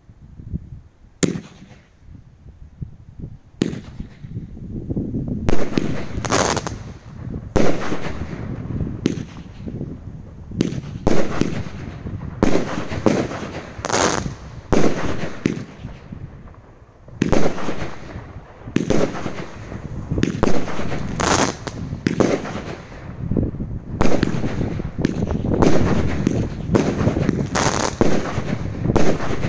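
A 19-shot consumer firework barrage cake firing: a run of sharp bangs from shots launching and bursting, sparse at first and coming thick and fast from about five seconds in, with dense crackling between the bangs.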